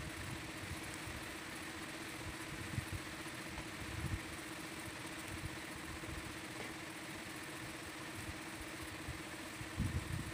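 A motor running steadily in the background, a constant even hum with a few faint low thumps.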